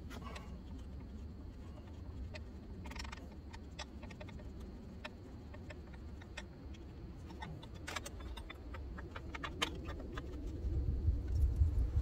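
Scattered light clicks and small metallic clinks of hands working on wiring, connectors and fittings around a starter motor in an engine bay, thickest about eight to ten seconds in, over a steady low rumble that grows louder near the end.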